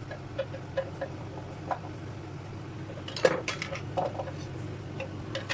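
A cooking utensil clinking and tapping against a pan while sugar is stirred into a simmering tomato sauce. The taps are scattered, with a louder knock and a quick run of clinks about three seconds in.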